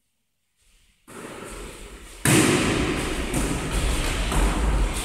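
Thuds and knocks of a volleyball being played and players moving on a wooden sports-hall floor, echoing in the hall. The sound starts about a second in and grows much louder about a second later.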